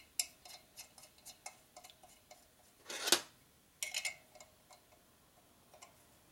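Small metal parts clicking and tapping as they are handled and fitted by hand at the exhaust port of a shovelhead cylinder head, with one louder scrape about three seconds in. It goes quiet for the last two seconds.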